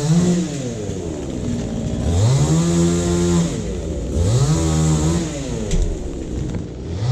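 A small two-stroke engine, such as a chainsaw's, revved up and held at high speed for a second or so, then let drop back to idle, over and over about every two seconds.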